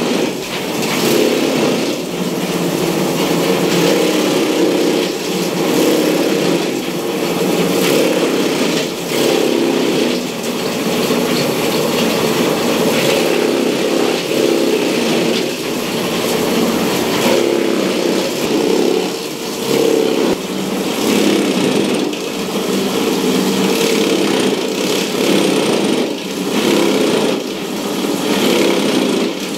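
An electric-motor, belt-driven chaff cutter running under load, its blades chopping dry straw fed in by hand. A steady mechanical drone with a dense crackle of cutting over it, the loudness rising and falling every second or two.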